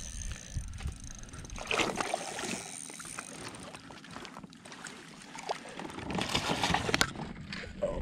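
Water splashing and sloshing at the side of a fishing kayak while a hooked smallmouth bass is played to the landing net, in two bouts about two seconds in and again near the end, with a sharp knock just before the end.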